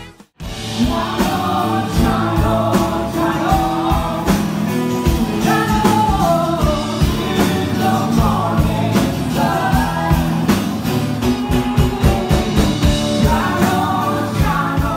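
Rock band playing with singing over drums, bass and guitar. The music cuts out for a moment right at the start, then runs on steadily.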